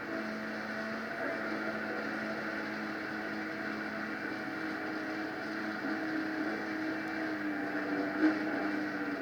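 Small engine of a mini jet boat running steadily under power, its pitch rising slightly about six seconds in, with a brief louder blip near the end.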